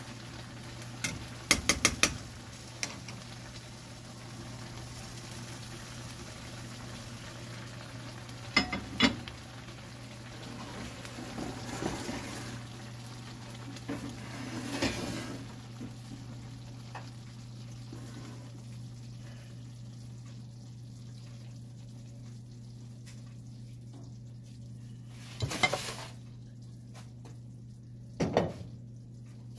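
Sausage and vegetable stew sizzling in a metal wok over a gas flame, a steady sizzle with a low hum beneath it. A spoon stirs and clicks against the pan in short clusters of sharp metal knocks, about two seconds in, around nine seconds, and twice near the end.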